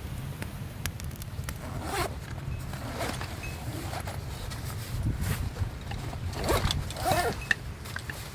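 A zipper pulled in several short strokes, over a steady low rumble.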